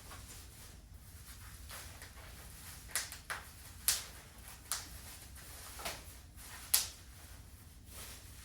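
Handling noise: about six sharp clicks and knocks spread over a few seconds, over a low steady hum.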